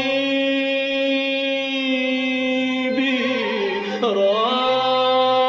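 A voice singing an Arabic song in a slow, drawn-out style: a long held note, then the word 'habibi' sung with a dip and rise in pitch about three seconds in, over a steady low accompanying tone.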